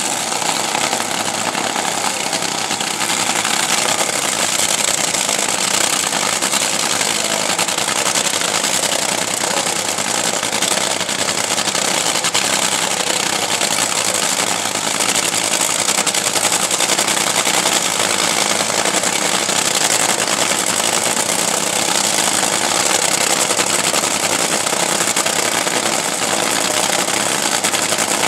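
Top Fuel dragster's supercharged nitromethane-burning V8 running steadily and loud during a pit warm-up.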